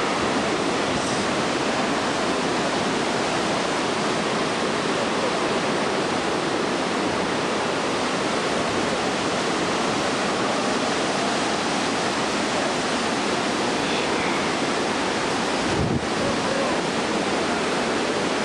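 Yosemite Falls in heavy spring flood: a steady rush of falling water and churning whitewater at the fall's base, with one brief click near the end.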